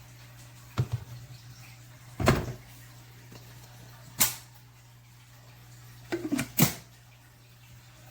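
A few separate sharp clunks and knocks, about five, spaced a second or two apart with two close together near the end, over a steady low hum.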